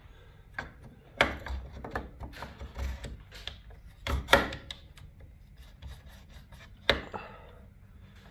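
A plastic gear being worked by hand into a garage door opener's gear housing: irregular scraping and knocking of plastic parts for the first few seconds, then a single sharp click about seven seconds in.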